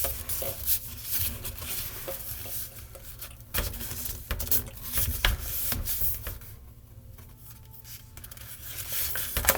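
A sheet of paper being folded and creased by hand: irregular crinkling and rubbing, with a quieter stretch past the middle.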